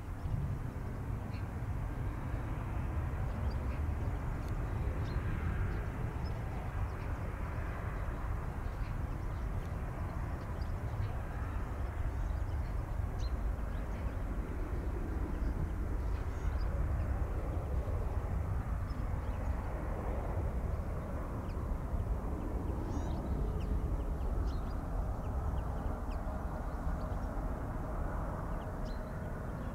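Boeing 747-400F's four jet engines running in a steady low rumble that swells and eases slowly. Short high bird chirps come and go over it.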